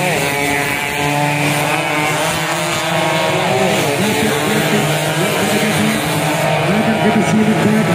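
Two-stroke underbone motorcycle engines revving hard, with several pitches that overlap, fall and climb again.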